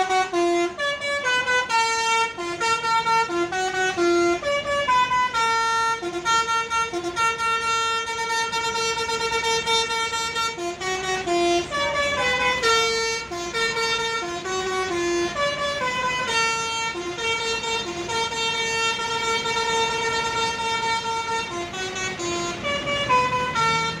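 Telolet basuri musical horn on a tour bus playing a long melody: a run of distinct held notes that step up and down in pitch, sounding without a break.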